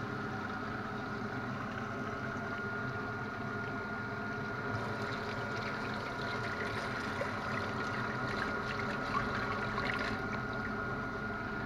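Kitchen tap running steadily into the sink, over a constant machine hum with a thin steady whine.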